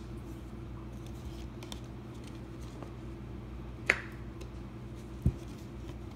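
A plastic ketchup bottle's flip-top cap snapping open with one sharp click, then a single dull thump about a second and a half later, over a steady low hum.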